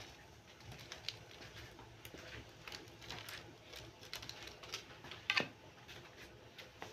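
Whole spices (cumin seeds, cloves, bay leaf, a piece of cinnamon) and a pinch of asafoetida crackling faintly in hot oil in a kadhai as a tadka is tempered, with scattered small pops. One louder crack comes about five seconds in.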